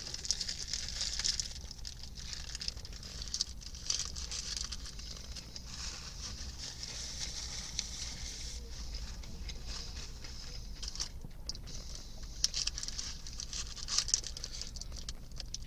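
Quiet chewing of a crunchy fried chicken sandwich, with scattered small crackles and clicks, over a steady low hum and hiss.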